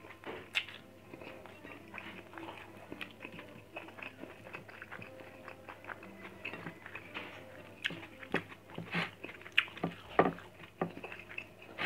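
Close-up chewing and mouth sounds of a person eating rice and grilled fish by hand: irregular wet clicks and smacks, with a few louder ones about nine to ten seconds in.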